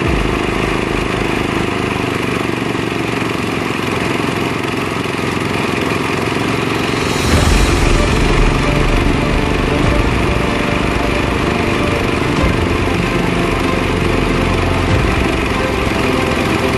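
Engine-driven rice threshing machine running steadily; about seven seconds in it gets louder, with a heavier low rumble.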